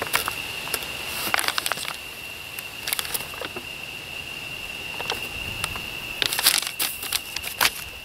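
A paper instruction sheet rustling and crinkling as it is handled, in uneven clusters of crackles. A steady high-pitched tone runs behind it.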